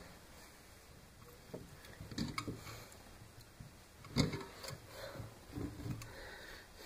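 Irregular light knocks and clicks of tools and small parts being handled on a wooden workbench: about half a dozen, the loudest a little past four seconds in.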